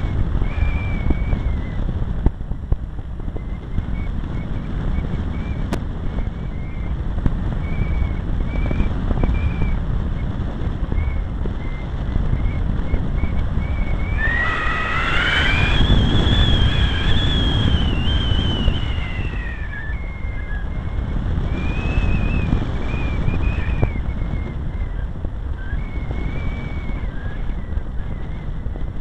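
Finwing Penguin RC airplane in flight: its electric motor and propeller whine steadily over heavy wind buffeting on the microphone. About halfway through, the whine climbs in pitch as the throttle opens, holds for a few seconds, then drops back.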